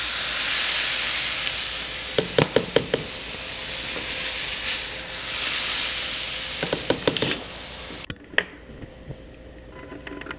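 Sautéed onions, bell peppers and trumpet mushrooms sizzling as they are scraped out of a hot cast iron skillet into a pot, with two quick runs of a spoon clacking against the pan. About eight seconds in the sizzle cuts off sharply, leaving quieter stirring of the chickpeas in the pot.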